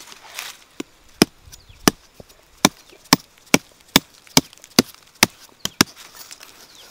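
A metal knife blade stabbing into hard, dry soil around a cassava root to dig it free: about a dozen sharp strikes, roughly two a second.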